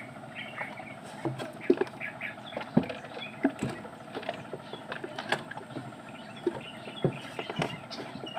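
Scattered knocks and clunks of a wooden slatted seat and footsteps in a small boat as it is handled, with faint bird chirps behind.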